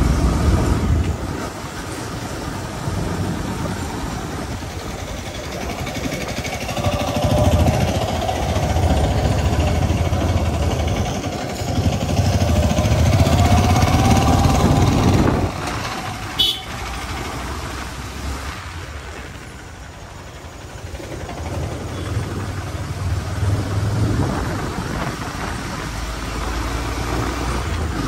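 Motor vehicle on the road with the engine running, swelling and fading, louder with a rising whine through the middle, then quieter; a brief sharp click about sixteen seconds in.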